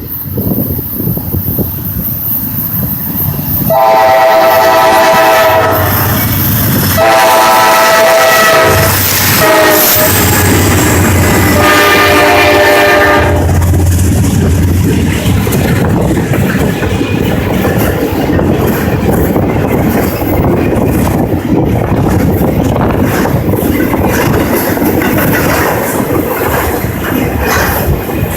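Norfolk Southern diesel freight locomotive's horn sounded in three long blasts as the train passes, the pitch dropping during the second blast and the third lower: the Doppler effect. Then the steady rumble of the triple-headed freight train rolling past, with wheels clattering over the rail joints.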